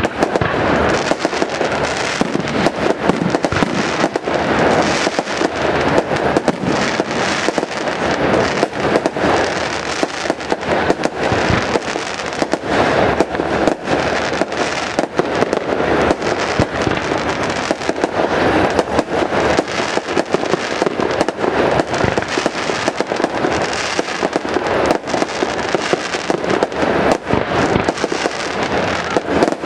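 Fireworks display: a dense, continuous crackle of rapid pops and bangs from bursting shells, with no pause.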